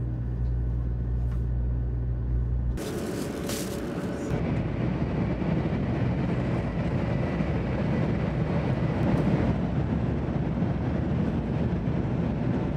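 500 series shinkansen running, heard from inside the passenger carriage: a steady low hum that changes about three seconds in to a broader, rougher rumble, with a short burst of hiss as it changes.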